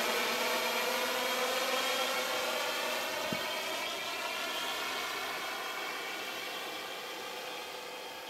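Quadcopter's electric motors and propellers humming steadily, growing gradually quieter as it flies away.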